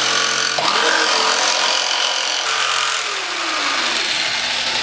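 Bosch electric jigsaw running steadily, its blade cutting through a thick stack of glued corrugated cardboard; the motor's pitch shifts a few times as the cut goes on.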